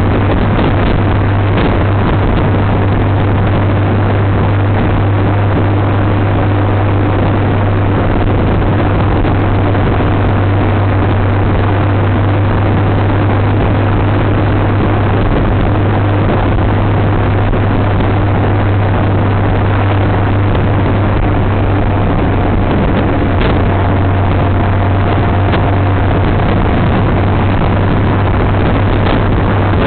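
Honda Gold Wing motorcycle cruising at a steady speed: a constant low engine drone under an even rush of wind and road noise.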